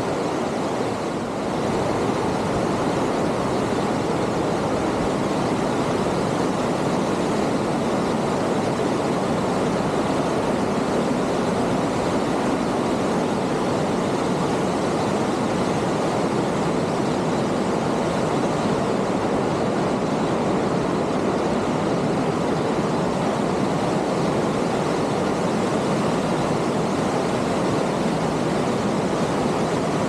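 Mountain creek rushing over rocks in white-water cascades, a steady, unbroken rush of water.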